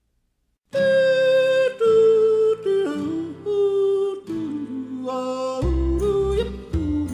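Background country music. After a short silence a new song starts with a slow lead melody whose notes slide into one another, and bass and guitar join about five and a half seconds in.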